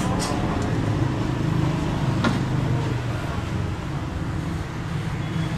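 Steady low hum of a running vehicle engine amid road traffic noise, with one sharp click about two seconds in.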